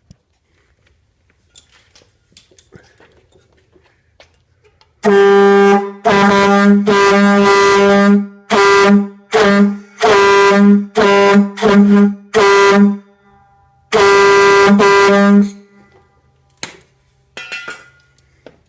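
Air-powered train horn, one trumpet fed from a compressed-air tank at about 140 psi, blown in about a dozen very loud blasts of one low note, some long and some short, beginning about five seconds in after faint handling noises.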